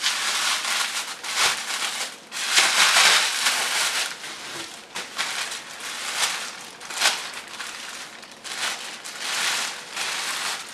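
Bubble wrap and a clear plastic bag crinkling and rustling in a run of bursts as they are pulled off a plastic model horse, loudest about three seconds in.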